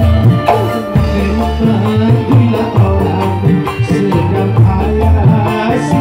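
Live dangdut band playing an instrumental passage: a strong bass line and pitched instruments over busy hand percussion with a shaker or tambourine.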